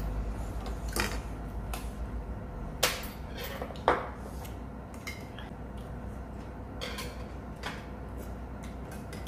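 Metal spoons and chopsticks clinking against stainless steel bowls and a pot during a meal: scattered light clinks, two sharper ones about three and four seconds in. A steady low hum runs underneath.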